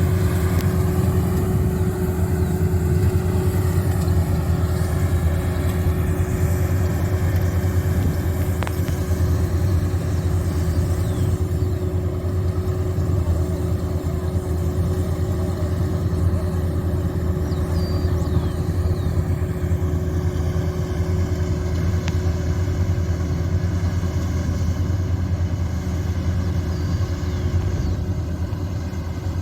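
Rice combine harvester's diesel engine running steadily under load, a constant drone with a steady mechanical hum over it.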